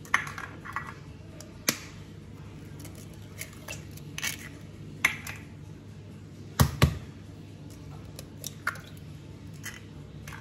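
Eggs being cracked one after another on a stainless steel mixing bowl: sharp taps and cracks of shell a second or two apart, the loudest a double knock about two-thirds of the way through.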